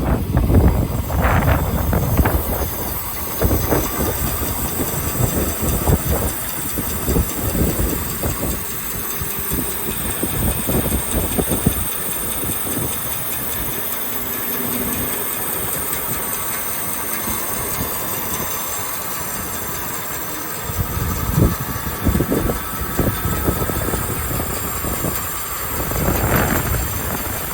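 Meber 600 band saw with a 2.2 kW motor running and its blade cutting through wood: a steady whirring hiss with irregular low rumbling and crackling during the cuts, steadier through the middle.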